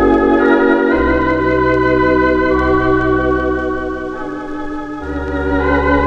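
Organ instrumental hymn: slow, held chords over sustained bass notes, the bass changing every second or so, played from a vinyl LP.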